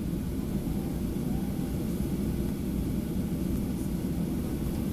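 Steady low rumble of a Boeing 737-800's CFM56 engines and airframe, heard from inside the passenger cabin.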